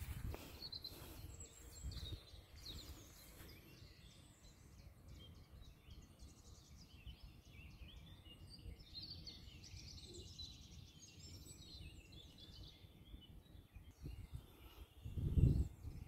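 Songbirds chirping faintly and scattered over a low rumble of light wind on the microphone. A louder gust rumbles on the microphone near the end.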